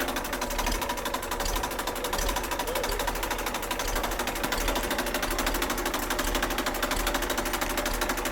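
Old three-cylinder diesel tractor engine running steadily with an even, rapid clatter, just after being started.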